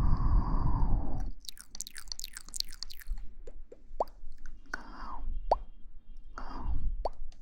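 Close-miked ASMR mouth sounds and breathing: a long breath blown onto the microphone, then a run of wet mouth clicks, with a few short pops and two more breaths in the second half.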